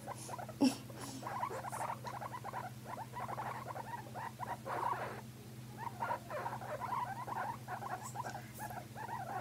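Guinea pigs vocalising, a quick run of soft, short squeaks and chatters that breaks off briefly a little past the middle.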